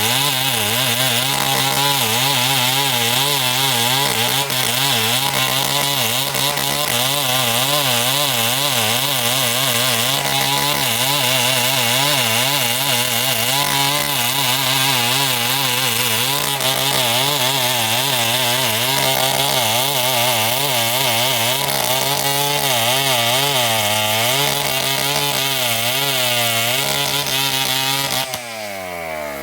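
Two-stroke chainsaw cutting through timber under load, its engine pitch wavering as the chain bites. About a second and a half before the end the engine drops off and the revs fall away.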